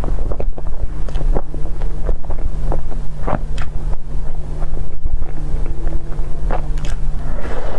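Close-miked chewing and wet mouth smacks of someone eating soft chocolate crepe cake, with many short irregular clicks over a loud, steady low hum and rumble from the microphone.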